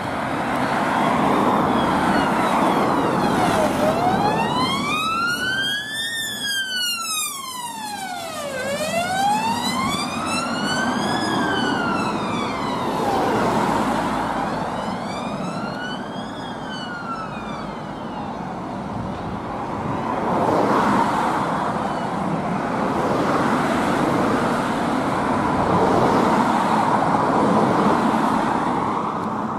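Fiat Ducato ambulance siren on a slow wail, its pitch rising and falling about three times, each rise and fall taking some five seconds, over passing road traffic. About halfway through the siren fades out and only the traffic noise is left.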